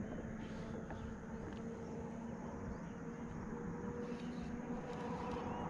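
Steady buzzing of insects, a continuous low hum with a few faint ticks.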